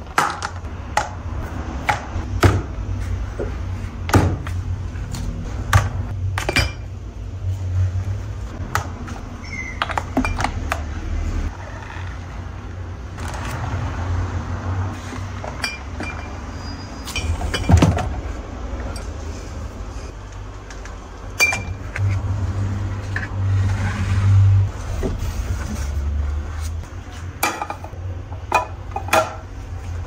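Glass and plastic bottles clinking and knocking as they are set down and shifted on a granite worktop and a plastic turntable organizer. Scattered taps and clinks come through the whole stretch over a low rumble.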